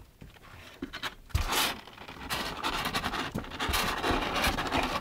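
Irregular scraping and rustling against a cardboard box as kittens scrabble about in it under a stroking hand, starting about a second in.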